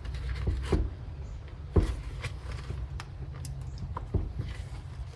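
Scattered light clicks and knocks of hands and tools working on a string trimmer's plastic housing and carburetor fittings, over a low steady hum.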